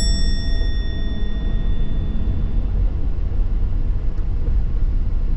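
Steady low road and engine rumble heard inside the cabin of a moving van. A single bell-like chime rings out at the very start and fades away over about two seconds.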